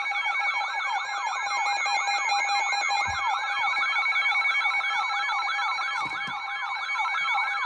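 Weather alert radio's electronic siren alarm: a rapid warble sweeping up and down about four times a second over a steady high tone. It signals a new warning coming over the broadcast.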